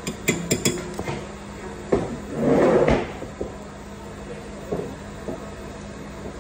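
Handling noise: several light clicks in the first second, then a knock and a loud rush of noise lasting about a second that ends in a second knock, about two to three seconds in, like a cupboard door or drawer being worked. A steady low hum runs underneath.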